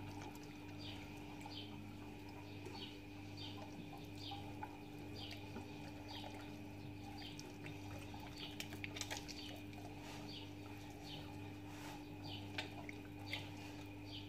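Short high chirps, each falling slightly in pitch, repeat about once every 0.7 seconds over a steady low electrical hum. A few soft clicks of hands working marinade into a raw chicken come about halfway through.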